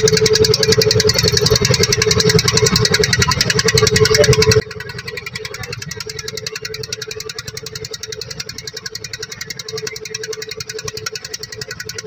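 A boat's engine running steadily with a rapid, even chugging. About a third of the way in, it suddenly becomes much quieter and keeps the same beat.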